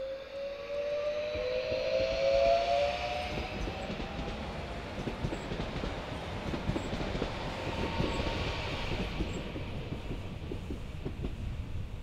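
HŽPP 6112 series electric multiple unit passing close by: a whine that rises slowly in pitch over the first few seconds, then wheel and rail rumble with many short clicks as the cars roll past and away.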